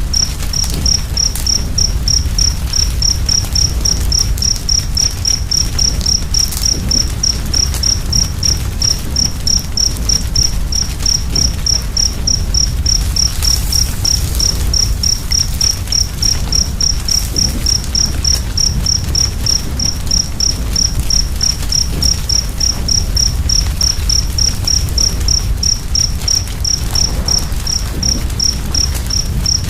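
A cricket chirping steadily, about three short high chirps a second, over the low steady rumble of a wood fire with a few faint crackles.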